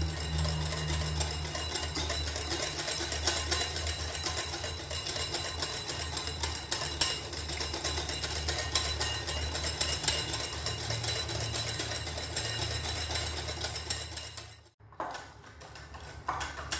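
Wire whisk beating instant coffee, sugar and hot water in a bowl by hand: a fast, steady clatter of the wires against the bowl as the mixture whips into a thick foam. It breaks off for a moment near the end, then starts again.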